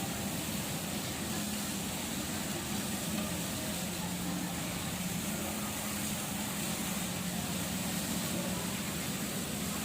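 Steady mechanical hum with a constant low tone over an even hiss, unchanging throughout.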